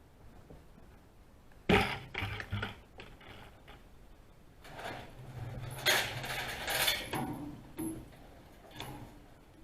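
Cattle eating at a feeder: a string of sharp knocks and rattles as they push at the feed. The loudest knock comes a little under two seconds in, and a longer rattling stretch with more knocks follows around the middle.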